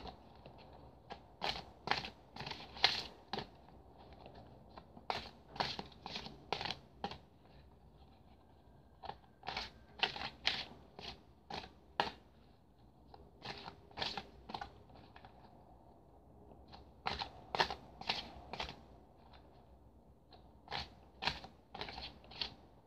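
Keepers of the Light oracle cards being shuffled by hand, overhand, the cards snapping against each other in quick runs of clicks, with short pauses between runs.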